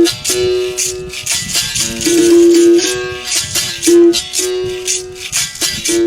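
Berimbau being played in a rhythm: the steel string is struck, ringing a note that switches between close pitches, with a shaker rattling along on the strokes.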